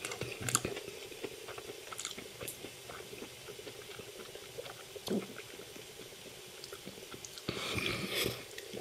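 A person chewing a mouthful of pan-fried gyoza close to the microphone: soft, wet mouth clicks, a short hum about five seconds in, and a louder breathy burst of noise near the end.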